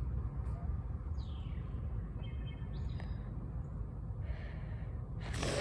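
Outdoor ambience: a steady low rumble with a few faint bird chirps, one of them a quick falling whistle. A short rustling hiss comes near the end.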